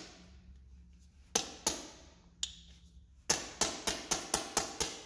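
Lisle hand impact driver being smacked down on the ground to seat a worn bit holder in it: sharp metallic knocks, a few spaced ones and then a quick run of about eight about three seconds in.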